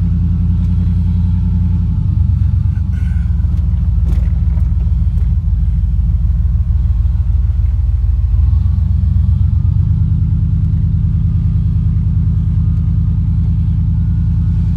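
Vehicle engine and road rumble while driving at a steady loudness. The engine note shifts about two seconds in and rises again between about eight and ten seconds.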